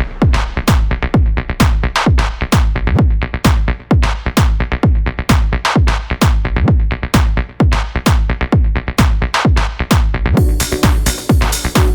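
Electronic dance music with a steady pounding kick-drum beat, a high wash of synth noise building near the end.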